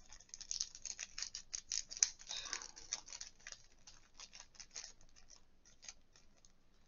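Small plastic diamond-painting drill pots clicking and rattling as they are handled and swapped. The clicks come thick and fast for about the first three seconds, then thin out.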